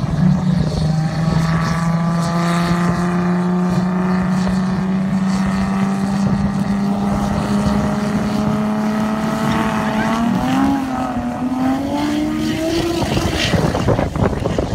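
Two turbocharged drag cars, a Mazda RX-7 and a BMW V8, held at steady high revs on the start line. About ten seconds in they launch: the engine note wavers, then rises in pitch as the cars accelerate away down the strip and fade.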